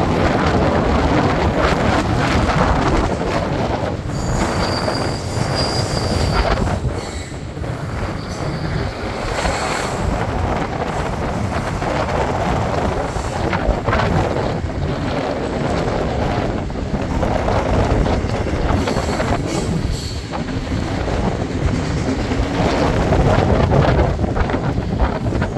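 BNSF double-stack container train rolling past, a steady rumble and rattle of the cars on the rails, with wind buffeting the microphone. A thin high wheel squeal rises above it for a couple of seconds about five seconds in.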